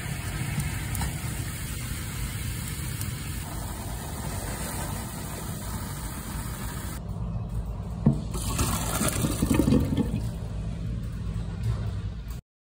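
Water at a rolling boil bubbling in a pan. A single sharp knock comes a little after eight seconds, and the water noise is louder for a couple of seconds after it.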